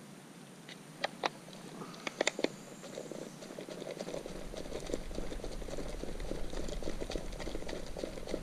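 Fingers rummaging through a plastic tub of earthworms in damp soil, looking for bait: a few sharp clicks in the first couple of seconds, then a steady, close crackling rustle.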